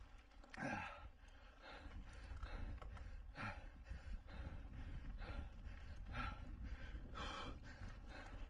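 Mountain biker breathing hard under full race effort: heavy gasping breaths about once a second, a couple dropping in pitch, over a steady low rumble.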